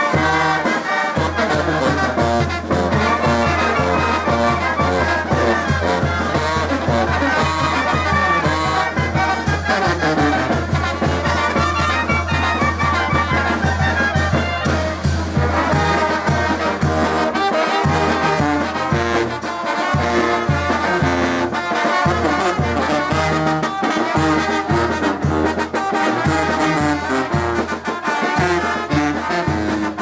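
Brass band with two tubas playing live: trumpets and trombones carry the tune over the tubas' bass and drums. The tuba bass is held long and steady at first, then changes to a pulsing beat a little past halfway.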